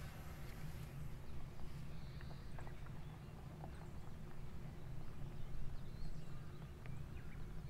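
Outdoor ambience: a low, steady rumble of wind on the microphone, with a few faint bird chirps and scattered small ticks over it.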